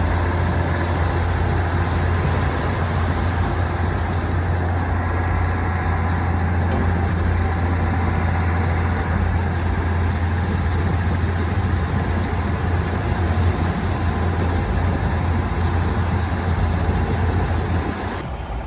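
Diesel train engine running steadily with a deep rumble, which drops away near the end.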